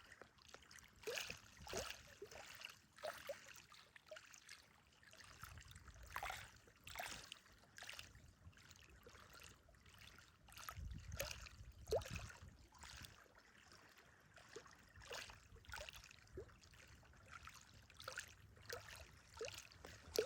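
Small waves lapping at the water's edge of a reservoir: soft, irregular splashes and little gurgling plinks, with a brief low rumble about halfway through.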